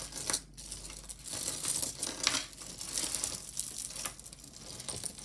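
Plastic beads and metal chains of tangled costume jewelry clicking and rattling against each other as a bead necklace is worked loose by hand, with irregular light clicks and rustles.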